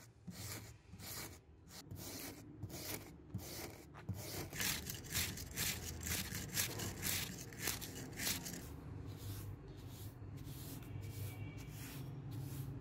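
Hand wire brush scrubbing rust off an old steel wrench: quick, rasping back-and-forth strokes of steel bristles on rusty metal, about two to three a second, coming faster in the middle.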